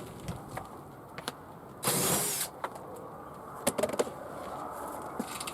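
An impact driver runs in one short burst of under a second, about two seconds in, driving or backing out a screw. A few light clicks and knocks follow.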